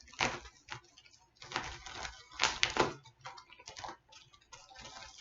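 Plastic bubble mailer being crinkled and torn open by hand, in irregular bursts of rustling and crackling.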